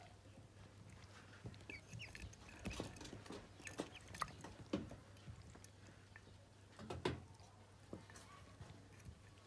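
Newly hatched ducklings moving about and pecking, making scattered soft taps and a few faint short peeps, over a low steady hum.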